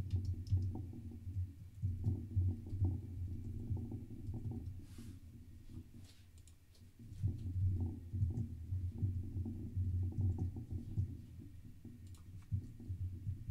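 Computer keyboard typing: quick runs of dull, low key clicks in two stretches, with a short pause about six seconds in.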